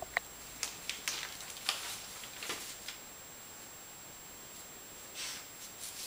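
A small dog rustling and pulling at a magazine's paper pages, in short crinkly bursts through the first few seconds and again about five seconds in. A brief rising squeak comes right at the start.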